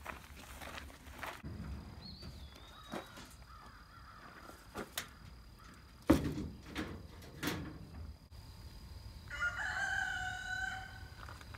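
Metal knocks and rattles of a wire cage trap handled on a pickup's bed a little past halfway, the loudest about 6 seconds in. Near the end a rooster crows once.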